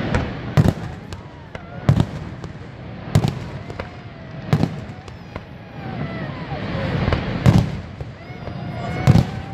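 Aerial firework shells bursting overhead: about six sharp bangs a second or two apart, over a steady rush of noise.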